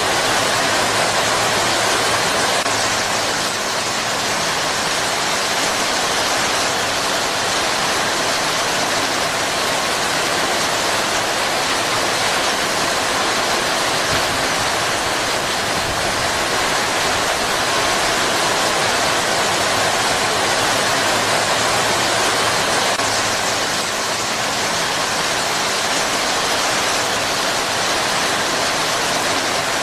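Heavy rain pouring steadily on palm fronds, a dense, even hiss.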